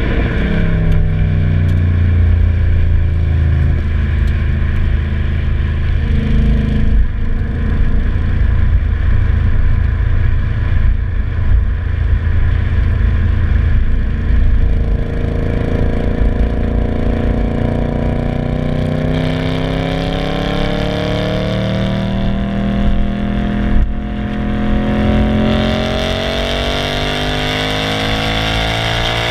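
Audi S5's 4.2 V8 running through a non-resonated stainless steel catback exhaust: the revs fall at the start, hold low for about a dozen seconds, then climb slowly and steadily through the second half.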